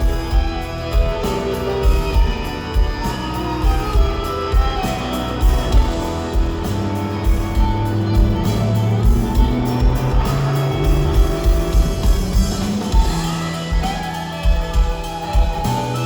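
Country band playing an instrumental passage: guitar over a steady drum beat of about two hits a second.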